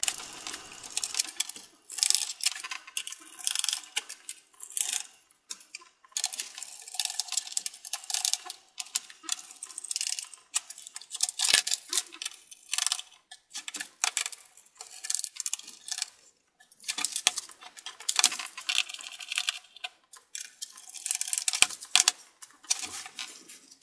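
Sped-up clicking and rattling of a small Phillips screwdriver backing out the screws on the bottom case of a Lenovo ThinkPad T530 laptop, with small screws clinking as they are set down on a wooden bench.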